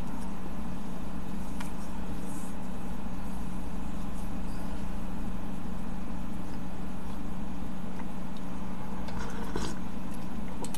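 Steady low hum with a constant tone, with a few faint clicks.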